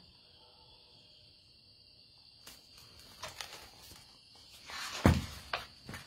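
Insects trilling steadily and faintly in the background. From about halfway come scattered rustles and clicks of handling, with one loud thump about a second before the end.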